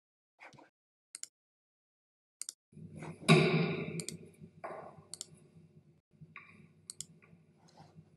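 A few sharp clicks, like a computer mouse, then room noise with a low hum from a gym video's sound track starting a little under 3 s in. It opens with a loud bump and goes on with scattered softer knocks and rustling.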